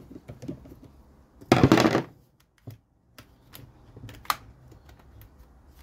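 Handling sounds of a plastic air filter and its parts being tried on a chainsaw: scattered light clicks and ticks, a loud burst of noise lasting about half a second about one and a half seconds in, and a sharp click with a brief ring about four seconds in.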